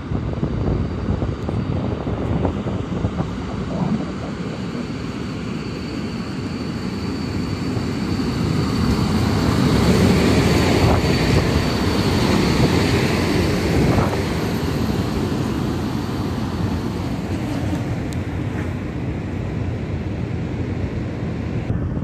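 Electric locomotive of class EP07 hauling a passenger train past along the platform: steady running noise of wheels on rails and the locomotive's machinery, swelling as it comes close and loudest about ten seconds in, with a faint high steady whine through it.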